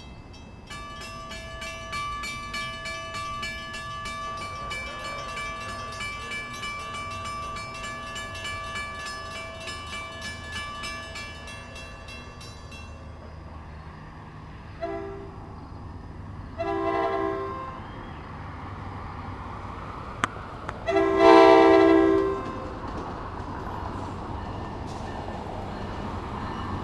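A grade-crossing bell rings rapidly for about twelve seconds. Then an approaching NJ Transit train's horn sounds three blasts: a short one, a longer one, and a final longest and loudest one. The train's rumble grows louder near the end as it comes closer.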